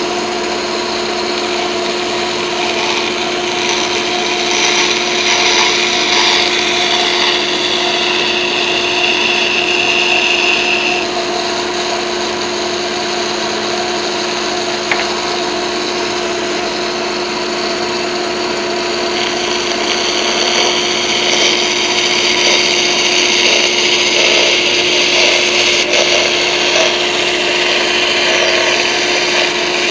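Band saw running with a steady hum, its blade cutting through a hardwood cutting board for about the first ten seconds, running free for a while, then cutting again from about twenty seconds in.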